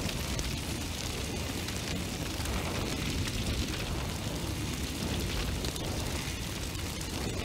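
Steady roaring rumble with a fine crackle throughout: the noise of a large fire.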